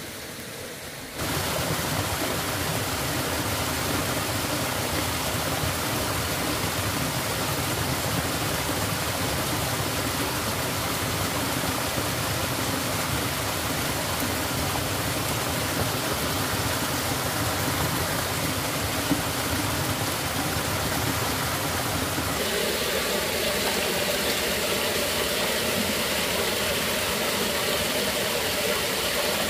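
Small forest stream running over rocks, a steady rush of water. It gets louder suddenly about a second in and changes tone about two-thirds of the way through.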